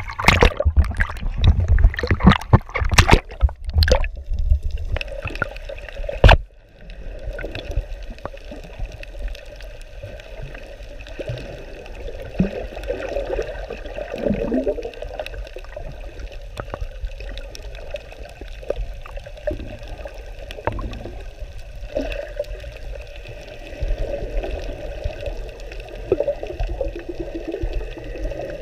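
Loud splashing and knocks at the sea surface for about six seconds, then the sound drops and turns muffled: steady underwater water noise with gurgling, heard through a camera submerged while snorkeling in the sea.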